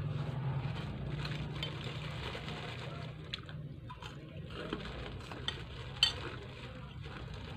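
Metal spoon scraping and clinking against a ceramic plate during a meal, with a few sharp clinks (the loudest about six seconds in), over a steady low hum.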